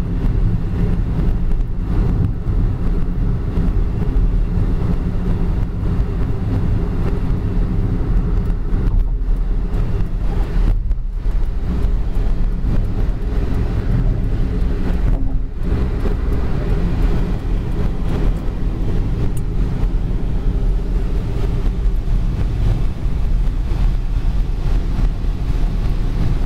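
Steady low rumble of a car driving at speed on a wet highway, heard from inside the cabin.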